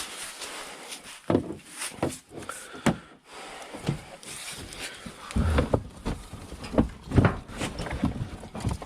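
Irregular knocks, clicks and clatter of hand tools and parts being handled while the front end of a van is taken apart, sparse at first and busier in the second half.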